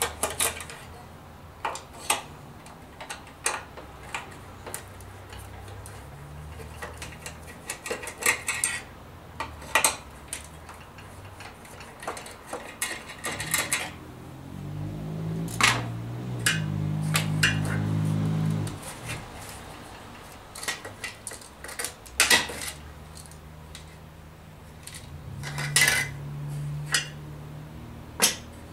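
Screwdriver and small screws clicking and clinking against a metal radio housing and a glass tabletop during disassembly, in scattered sharp strokes. A low hum swells for a few seconds in the middle and comes back later.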